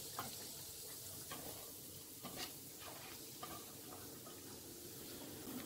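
Cashews frying in desi ghee, a faint sizzle, with a few light clicks and scrapes of a slotted spoon as the lightly browned cashews are scooped out of the pan.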